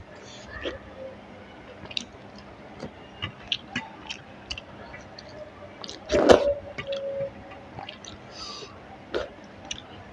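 Close-up mouth sounds of eating rice and curry: scattered chewing clicks and wet smacks, with one louder brief mouth noise about six seconds in.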